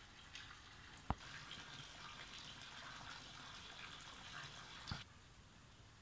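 Light rain pattering and dripping, faint, with a sharp click about a second in and another near five seconds, after which the patter drops away.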